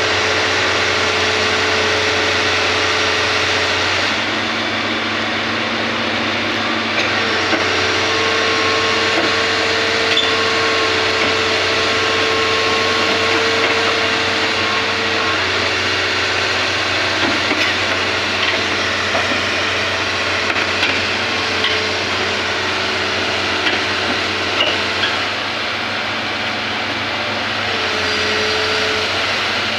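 Hitachi excavator's diesel engine running under load, with a steady hydraulic whine that steps up and down in pitch every few seconds as the machine works, and a few light knocks.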